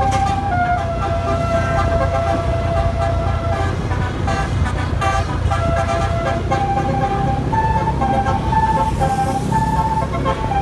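Telolet bus horn playing a melody of held notes that step up and down, over the low rumble of a running engine. Past the middle the tune turns to shorter, quicker notes.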